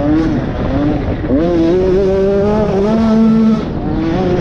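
KTM 85 cc two-stroke motocross engine under hard riding, revving up and back in short bursts. From about a second and a half in it holds one long, climbing rev, which cuts back sharply near the end before another short rev.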